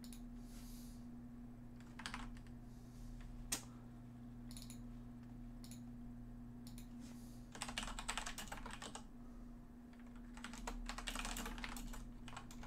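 Typing on a computer keyboard: a few single key clicks, then two short runs of rapid keystrokes in the second half. A faint steady hum underneath.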